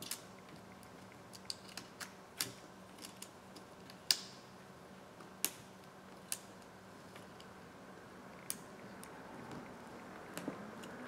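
Small sharp clicks and taps of tools and parts being handled on an opened iPhone 7 Plus, about ten spaced irregularly, the loudest about four seconds in, over a faint steady hum. A faint tone begins to rise near the end.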